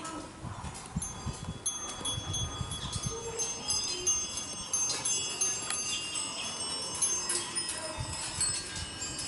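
Many small metal bells tinkling together, a dense jangle of overlapping high rings that strike and fade at different moments.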